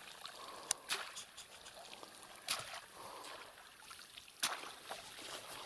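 Faint water splashing and trickling as a seine net is dragged through shallow water by a wading man, with a few short, sharp splashes.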